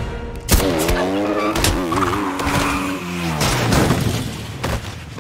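A single rifle shot, then a motorcycle going down and sliding: a wavering squeal with scraping and a few knocks, fading toward the end.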